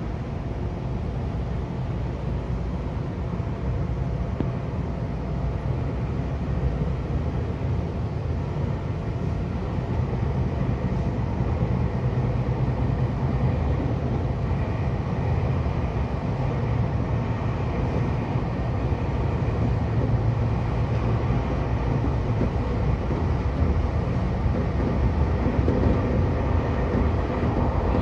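Seibu 2000 series electric train running, heard from inside the driver's cab: a steady rumble of wheels on rails that grows gradually louder as the train gathers speed.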